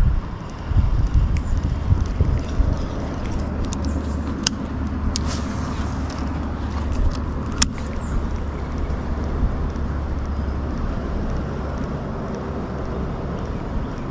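A motor vehicle's steady low rumble, easing off slightly near the end, with a few sharp clicks about four to eight seconds in.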